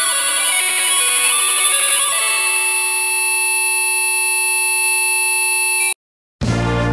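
Harsh, heavily distorted electronic buzzing made of many layered tones, stepping in pitch at first and then holding steady. It cuts off abruptly about six seconds in. After a brief silence, loud music with heavy bass starts just before the end.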